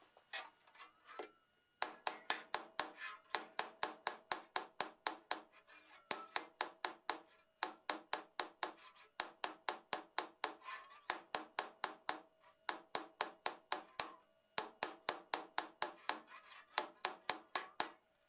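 Hammer rapidly tapping an 1860s Disston hand saw blade laid on a steel block, about four or five light blows a second in runs with brief pauses, over a steady metallic ring: the blade being hammered to take out a bow or bend.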